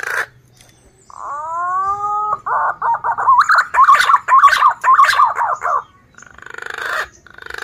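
Male punai daun green pigeon singing: a rising whistled note, then a fast run of warbling, wavering notes for about three seconds, followed by rougher, breathy calls near the end.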